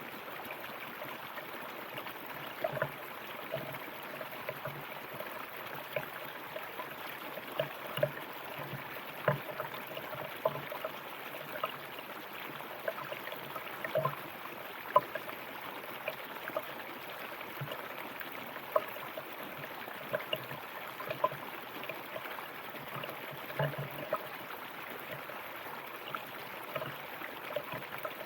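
A shallow river or stream running over rocks: a steady rush of water with frequent small bubbling splashes and plops.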